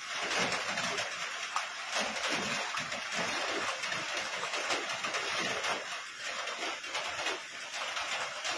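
Steady rain falling: an even hiss flecked with fine splashy crackle.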